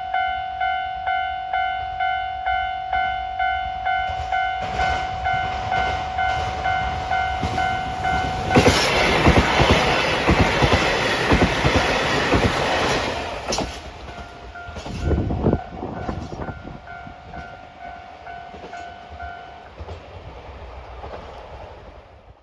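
Japanese level-crossing warning bell dinging about three times every two seconds. About eight seconds in, a KiHa 261 series diesel limited express passes over the crossing for about five seconds: a loud engine rumble with quick wheel clatter that drowns out the bell. The bell then goes on more faintly and stops near the end.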